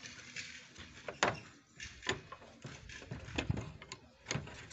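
A few scattered light knocks and clinks, about five in as many seconds, from tools and parts being handled on a steel pickup truck bed.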